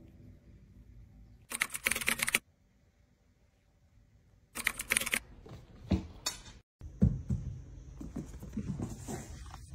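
Two bursts of rustling, each about a second long, as a curly-coated puppy is handled in a fleece blanket. After a brief cut-out past the middle, quick light clicks and taps follow as the puppy scampers after a ball on a hardwood floor.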